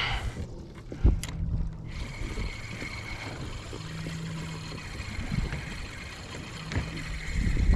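Wind on the microphone and water moving around a fishing kayak at sea, with one sharp knock about a second in.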